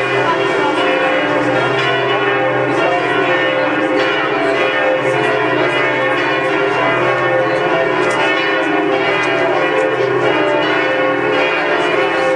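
Notre-Dame Cathedral's church bells pealing loudly, many overlapping strokes ringing on and on into one continuous, many-toned sound.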